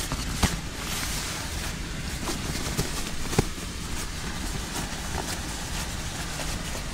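Camping gear being unpacked and handled: a few sharp knocks and rustles over a steady rushing background noise.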